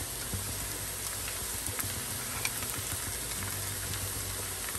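Caramelized onions sizzling gently in oil in a pan, a steady frying hiss with a low hum and a few faint ticks.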